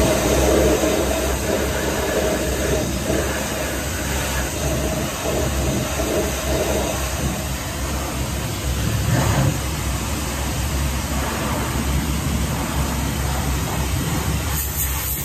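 Pressure washer running steadily, its jet of water hissing as it sprays against a tractor's wheel and frame, over the constant low hum of the washer's motor and pump.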